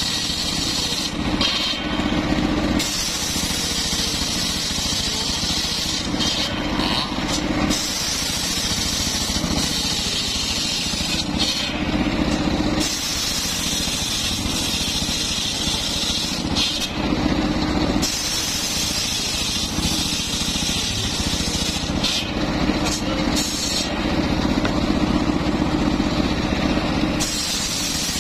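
Homemade circular saw bench ripping a mahogany slab, its drive running steadily under the cut. The high hiss of the blade in the wood drops away several times, leaving the free-spinning blade and drive humming.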